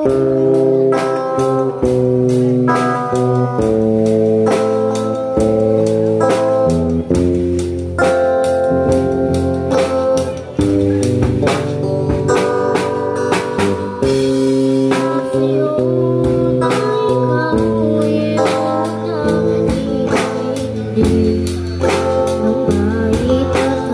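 A girl singing into a microphone while playing a drum kit one-handed, with regular drum and cymbal hits over a sustained chordal accompaniment that changes about once a second. The sound is amplified live music.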